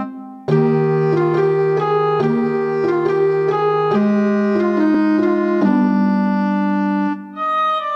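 Background music of sustained keyboard chords that breaks off briefly at the start and again near the end, where a different tune begins.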